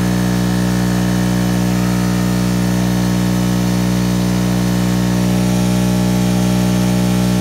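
Generator running with a steady, machine-like hum made of several level tones. Its sound shifts slightly about five seconds in as the electrical load on it changes.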